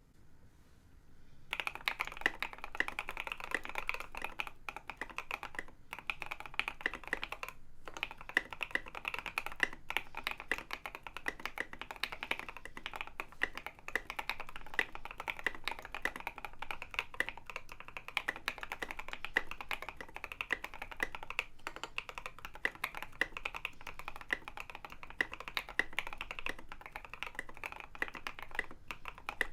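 Fast, continuous typing on a custom mechanical keyboard: a Leopold FC980M in a Norbauer Heavy 9 metal case, with lubed and filmed H1 switches over a foam-dampened steel plate. The typing starts about a second and a half in and runs as a dense stream of keystrokes, with a couple of brief pauses.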